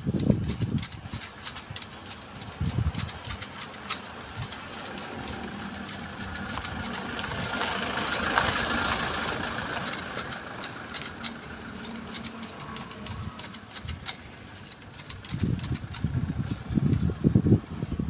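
Hand shears snipping through the small branches of a Fukien tea shrub: irregular sharp clicks throughout. An engine sound swells to its loudest about halfway through and then fades.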